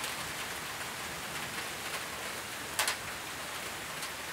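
Steady summer rain falling on trees and ground, with one sharp tap about three seconds in.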